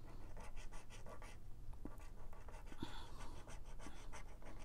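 Plastic scratcher scraping the coating off a scratch-off lottery ticket in quick, repeated short strokes.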